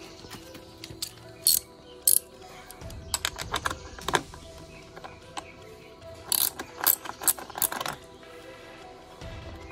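Ratchet handle with a 10 mm socket on an extension bar clicking in several short runs as it loosens the nut on a motorcycle's battery clamp.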